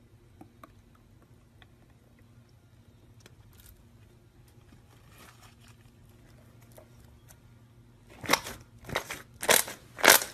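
Slime being handled close to the microphone: faint scattered clicks and small crackles at first, then from near the end four loud crunchy squeezes, each a short crackling burst.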